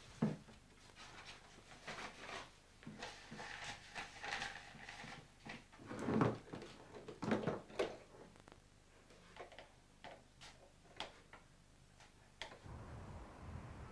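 Kitchen clatter: scattered clinks, knocks and scrapes of crockery and utensils being handled at a counter, irregular and of varying strength. Near the end it gives way to a low steady rumble.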